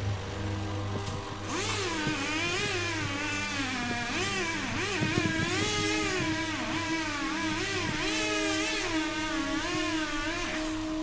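Two-stroke chainsaw cutting through a cedar of Lebanon's trunk, its engine pitch rising and falling over and over as it revs and bogs in the wood, with a steady held tone underneath from about halfway.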